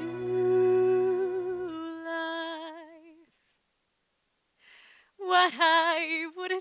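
Soft musical-theatre accompaniment holding a chord that fades out, with a wavering melody note that dies away about three seconds in. After a short silence a woman's solo voice comes in near the end, singing a loud held note with wide vibrato.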